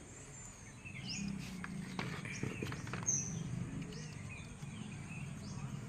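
Birds chirping faintly over a low steady hum, with a few light metallic clicks of tools and engine parts being handled.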